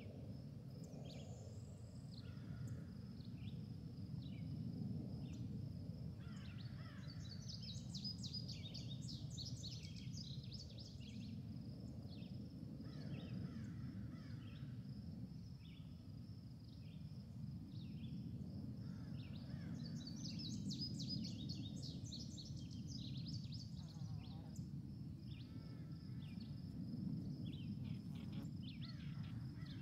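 Bird calls and chirps over a steady high tone and a low rumble, with two bursts of rapid high trilling about twelve seconds apart.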